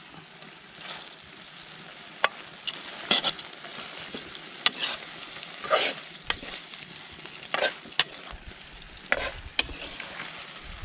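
Frog meat sizzling in a metal pan over a wood fire while a metal ladle stirs and scrapes it, with repeated sharp clinks of the ladle against the pan at irregular intervals.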